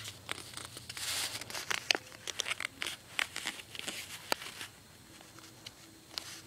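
A paper index card being folded and creased by hand: scattered crinkles and crackles as the fingers press and work the fold. They are busiest over the first few seconds and thin out about two-thirds of the way through.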